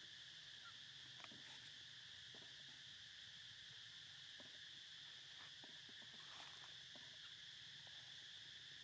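Faint, steady high-pitched drone of insects, with a few soft scattered ticks.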